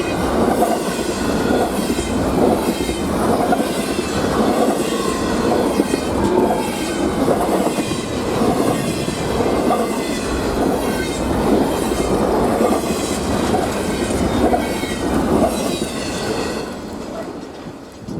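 Freight train cars rolling past, their wheels clacking over rail joints in a steady repeating rhythm; the sound drops off near the end.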